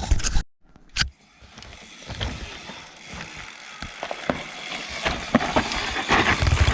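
Mountain bike freehub ratchet ticking as the bike coasts, with knocks and rattles over loose, dry dirt. A loud clatter at the start, then a brief drop to near silence and a sharp click about a second in, after which the ticking and trail noise build up.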